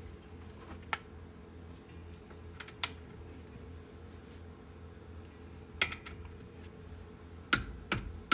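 Sparse metallic clicks from a socket wrench on the upper ball joint's castle nut as it is torqued, a few scattered through and the loudest pair near the end.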